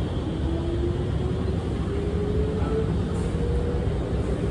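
Alstom R151 Movia metro train accelerating away from a station, heard from inside the car: a whine from the traction motors climbing in pitch in steps over a steady rumble of the running gear.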